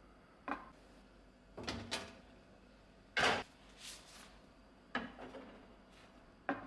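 A series of short kitchen knocks and clatters, about six in all, as cookware and utensils are handled; the loudest comes about three seconds in.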